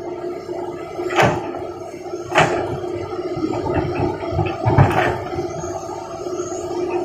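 A steady motor hum with loud knocks or clatters about a second in, near two and a half seconds, and near five seconds.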